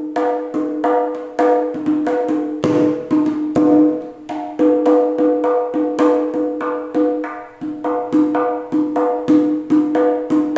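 Kendang jaranan toples, a small Javanese hand drum, played with the bare hand: a continuous run of sharp strokes in an uneven rhythm, about two to three a second, each ringing at the same clear pitch.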